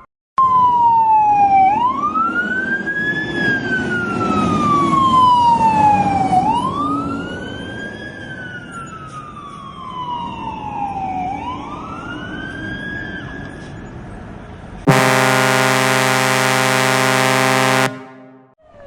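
Fire truck siren wailing: its pitch rises quickly and falls slowly in sweeps about five seconds long, three times, growing fainter after the first two. About fifteen seconds in, a loud air horn blast sounds for about three seconds and cuts off.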